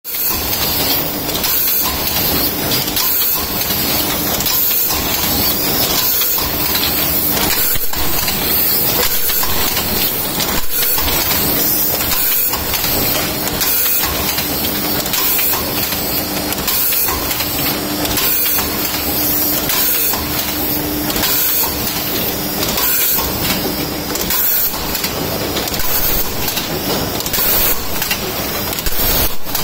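Automatic tube filling machine running: a steady mechanical clatter with air hiss, and a clunk about once a second as the stations cycle.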